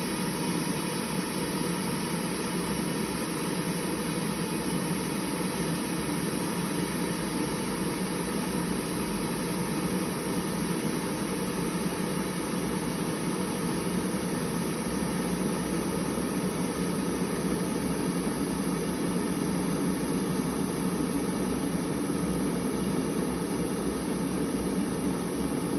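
A machine running with a steady, unchanging hum and hiss.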